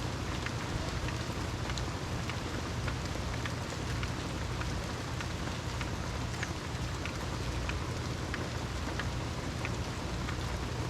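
Steady rain falling, with individual drops ticking out now and then over a continuous hiss and a steady low rumble beneath.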